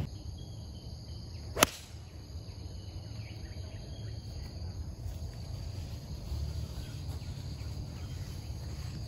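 A single sharp crack of a golf club striking the ball on a tee shot, about one and a half seconds in, over a steady chirring of insects.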